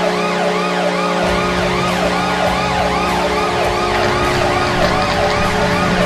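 NHL arena goal horn, edited in: a steady low horn blast under a siren that wails up and down about twice a second.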